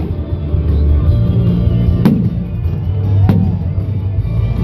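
Two firework shells bursting, about a second apart, over loud music with a heavy bass beat.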